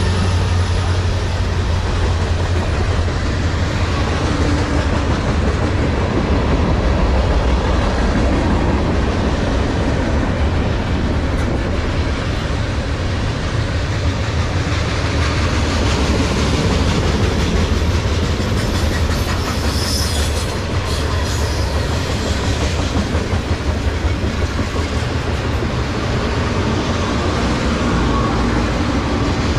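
Freight train of tank cars rolling past, its steel wheels running over the rails with a steady, loud rumble.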